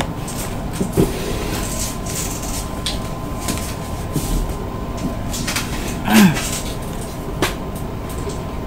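A person handling a tarot deck and moving about: light rustling and a few short clicks of cards and clothing over a steady background hiss. Two brief low pitched sounds come about one and six seconds in.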